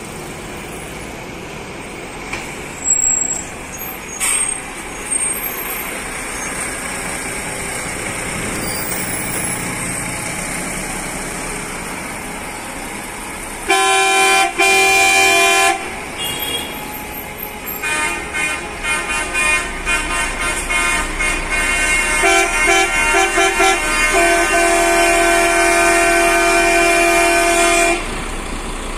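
Coaches passing in slow traffic with steady engine and road noise, then a coach horn blown for about two seconds near the middle. From about two-thirds in, a run of rapid repeated horn toots runs into a long held blast, the horns sounded in protest by the convoy.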